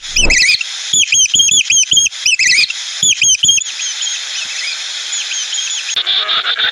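Small birds chirping: loud, rapid, high arched chirps in quick runs of several a second, thinning to fainter chirps after about four seconds. Near the end a different, lower, denser animal sound cuts in.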